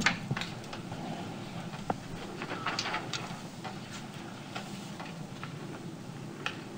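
Papers being shuffled and a few light clicks on a tabletop, with one sharper click about two seconds in, over faint room tone.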